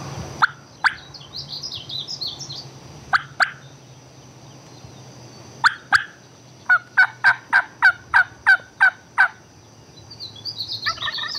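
Hen turkey yelps: three pairs of short, sharp, falling notes, then a run of about nine yelps at roughly three a second. A small songbird twitters high above them near the start and again near the end.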